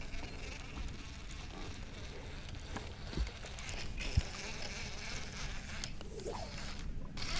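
Baitcasting reel cranked steadily on a retrieve: a faint whirring buzz with a few light ticks.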